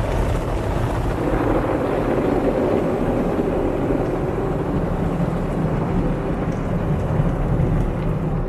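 An automatic gantry car wash running over a Toyota Prius, heard from inside the cabin: a loud, steady rush of spraying water and machinery with a low rumble underneath.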